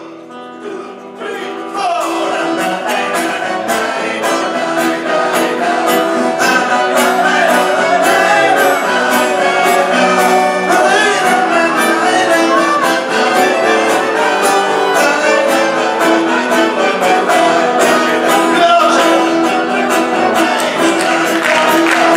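Live acoustic band music: guitars, accordion and double bass play an instrumental passage over a steady strummed beat. It starts softly and the full band comes in about two seconds in.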